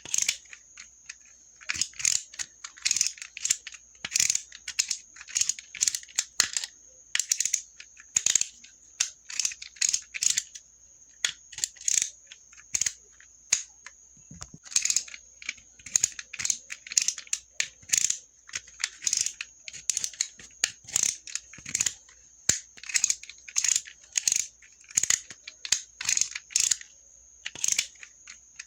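Utility knife (box cutter) worked over and over, giving short, sharp, rasping clicks about one or two a second with short uneven pauses, some coming in quick pairs.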